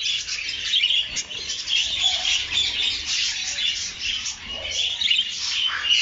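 Several budgerigars chattering together: a continuous, busy mix of quick high chirps, warbles and short squawks.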